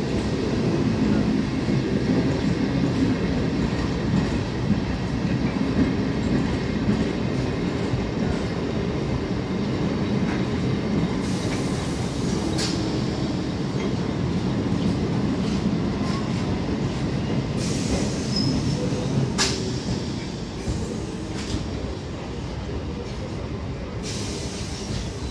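Electric multiple-unit suburban local train running past on the track: a steady rumble of wheels on rails, with a couple of sharp clicks, easing off a little near the end as it pulls away.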